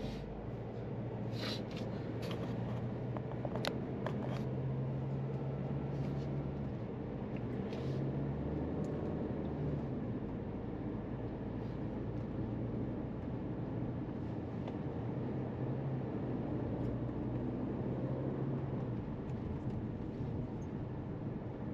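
SsangYong Torres's 1.5-litre turbo petrol engine and road noise heard from inside the cabin while the car accelerates gently from about 20 to 45 km/h, the Aisin six-speed automatic upshifting into fourth. The low engine hum steps in pitch a few times. A few sharp clicks come in the first few seconds.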